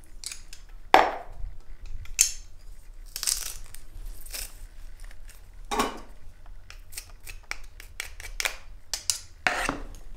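Plastic garlic press crushing a garlic clove and handled over a bowl: a few sharp knocks in the first half, then a run of small quick clicks.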